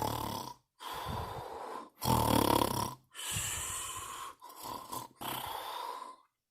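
A person snoring: a run of rasping breaths in and out, each about a second long, stopping suddenly about six seconds in.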